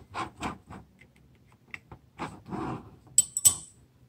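Needle-nose pliers working the pins out of a scooter torque driver, with light knocks and handling noise, then a few sharp ringing metal clinks about three seconds in as a small steel pin is dropped onto the steel face of a clutch pulley.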